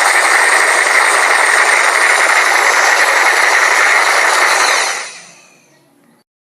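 A loud, steady rushing noise with no clear pitch, fading out about five seconds in and then cutting off.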